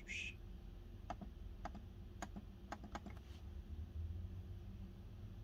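About six sharp clicks from a Lenovo laptop's keys and mouse buttons, unevenly spaced between about one and three seconds in, over a faint low hum.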